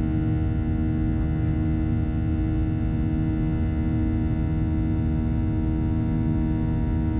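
Boeing 737-800's CFM56-7B turbofans heard from inside the cabin, running at high climb power: a steady, loud drone with a deep rumble and several steady whining tones.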